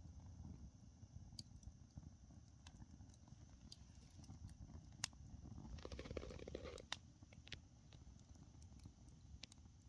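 Faint crackling of oak logs burning in a campfire: scattered sharp pops over a low steady rumble, with a short spell of denser crackling about six seconds in.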